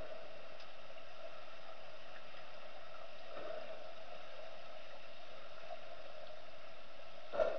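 Underwater swimming-pool ambience heard through a submerged camera: a steady hum and hiss, with one short, louder burst near the end.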